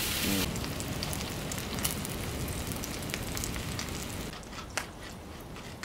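Pork neck slices and minari sizzling on a cast-iron griddle: a steady frying hiss with scattered pops of spitting fat, growing quieter about four seconds in.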